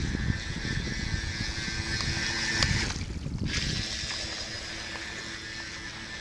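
Battery-powered electric motor of a Nikko Stinger 2 RC speedboat whining as the boat runs across the water, heard against wind rumble on the microphone. The high whine cuts out briefly about three seconds in, then picks up again.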